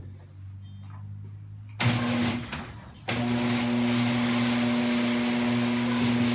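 Power drill driving screws into the doghouse's plywood panels: a short run about two seconds in, then a longer steady run at one pitch from about three seconds in.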